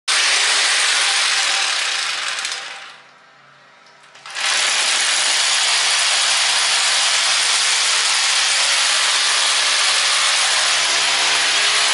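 Rotary hammer with a core bit drilling into a wall. It runs, winds down and stops about three seconds in, then starts again about a second later and runs steadily.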